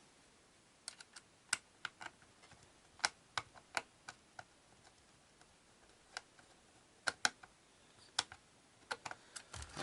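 Scattered small clicks and taps of a screwdriver working a screw into the plastic case of a clock radio, in irregular clusters. The screw is not going in: something is blocking it.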